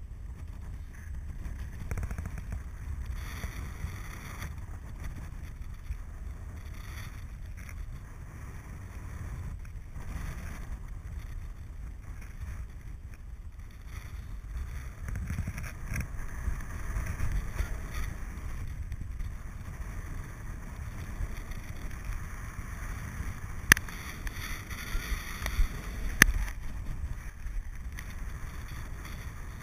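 Wind rushing and buffeting over the microphone of a paraglider pilot's camera in flight, a continuous rumbling hiss that swells and eases. Two sharp clicks stand out near the end.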